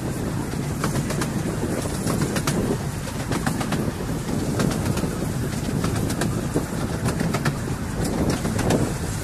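A 10¼-inch gauge miniature railway train running along the track, heard from aboard a carriage: a steady rumble of the moving train with irregular sharp clicks of the wheels over the rail joints.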